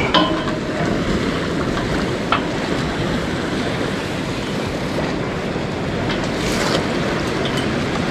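Steady rush of ocean surf and wind, with a few faint clicks.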